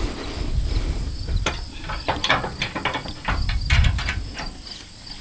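Steady high-pitched insect buzz, with wind rumbling on the microphone. A run of clicks and rustles comes from about a second and a half in until about four seconds.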